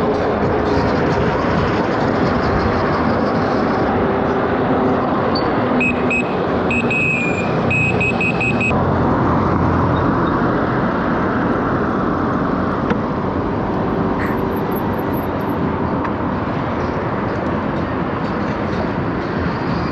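Steady wind rush on the microphone and road noise from an electric bike riding through city traffic. About six seconds in, a short run of high electronic beeps sounds for a few seconds.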